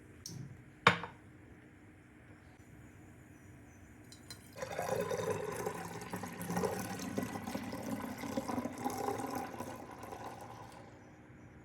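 A single sharp clink about a second in, then about six seconds of juice pouring into a container, filling it for storage.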